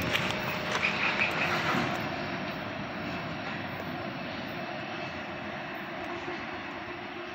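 Rear distributed-power diesel locomotive of a loaded BNSF coal train pulling away, its engine drone and the rolling train fading slowly with distance.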